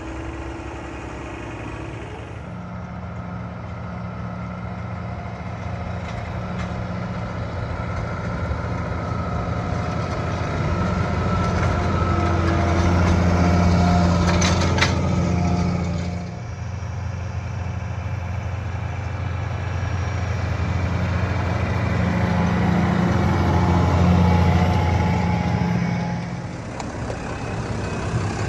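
Claas Axion 850 tractor's six-cylinder diesel engine running steadily under load as it pulls a 6-metre Unia Max cultivator through the soil. Its low hum swells louder twice, about halfway through and again near the end, as the tractor comes close.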